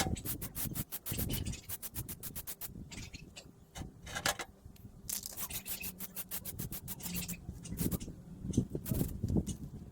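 Quick back-and-forth hand scraping on the steel handle, about ten strokes a second, in two runs separated by a short pause. A few softer knocks come near the end.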